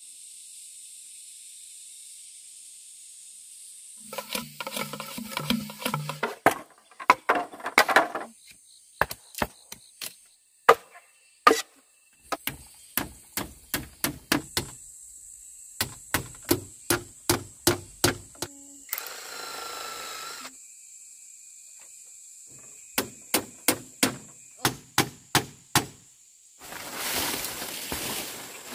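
Repeated tool strikes on wood, coming in runs of about two blows a second with short pauses between runs, as in barn building.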